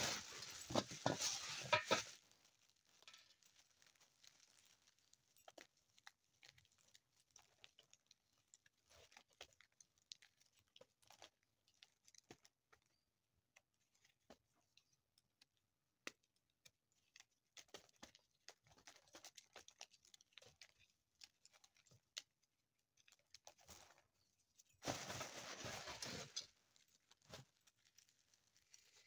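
Dried popcorn kernels being twisted off the cob by hand, clicking and pattering one by one into a basin, with two louder rattling rushes of kernels: one in the first two seconds and one about 25 seconds in.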